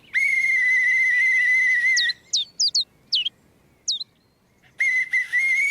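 A pea whistle blown in a long, steady trilling blast of about two seconds, answered by a handful of short, quick bird chirps, then blown again in a shorter blast near the end.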